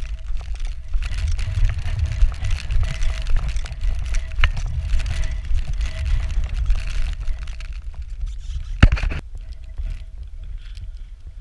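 Wind buffeting the microphone as a steady low rumble, with footsteps crunching on a gravel track. A sharp knock from the camera being handled comes about nine seconds in, and the wind rumble is quieter after it.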